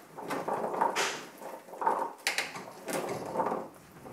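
Hands mixing oiled chickpeas on a baking sheet lined with a silicone mat: uneven rustling and rolling of the chickpeas, with a few sharp clicks.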